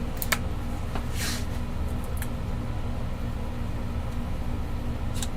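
Steady low room hum, with a few light clicks and one short rustle from small items being handled on the workbench.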